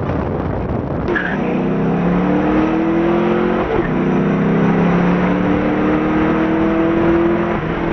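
Twin-turbocharged Chevrolet Camaro SS V8 accelerating hard, heard from inside the car. After about a second of road and wind noise the engine note climbs steadily, dips at a gear change about halfway, then climbs again to another shift near the end.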